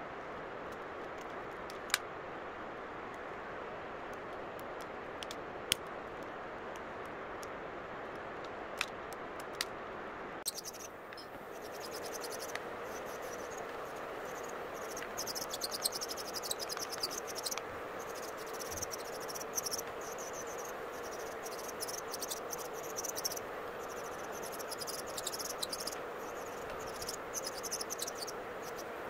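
Steady fan noise from a nail dust collector, with a few sharp clicks as cuticle nippers snip rhinestone parts off a gel nail. About ten seconds in, an electric nail drill (e-file) takes over, a steady motor hum with high, scratchy grinding as the bit files the remaining gel off the nails.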